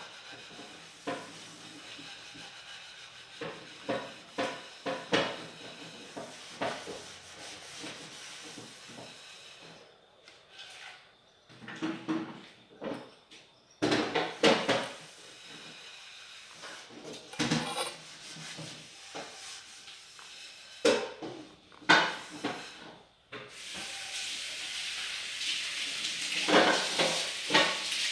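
Scattered light taps and clicks as fingers set apple slices into a metal baking pan. A steady hiss comes in about 23 seconds in and carries on to the end.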